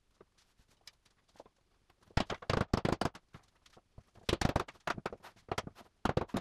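Ebonized oak wine-rack dividers being knocked and tapped together into their slots, in quick clusters of sharp wooden knocks and clatter. The loudest run comes a little after two seconds in, with shorter runs near four and a half seconds, five and a half seconds and just before the end.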